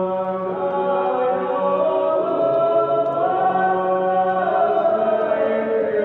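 Choir singing slow, sustained chords, the voices holding long notes and moving together to new ones every second or so.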